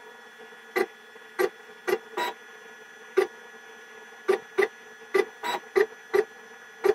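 FLUX beamo laser cutter's gantry motors making about a dozen short, irregularly spaced moves as the camera head steps across the bed to photograph the material, each move a brief buzz. A steady faint machine hum runs underneath.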